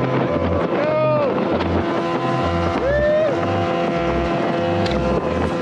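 Outboard-powered fibreglass boat running at speed, with water spray off the hull and wind on the microphone. Background music with a steady bass beat plays over it.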